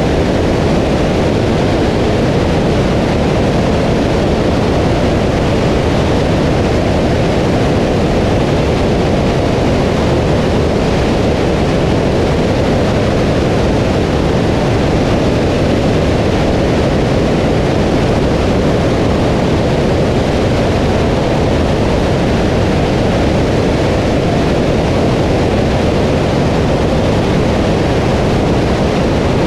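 Steady, loud rush of airflow over a camera mounted outside on the wing of a Socata TB20 light aircraft in cruise, mixed with the aircraft's engine and propeller noise.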